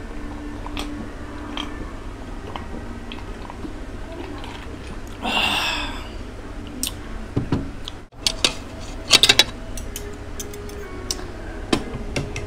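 Drinking from a glass of iced drink, with a short breathy burst about five seconds in. From about nine seconds on come sharp clinks: the ice-filled glass set down on the table, and a spoon and fork knocking against a ceramic bowl of curry.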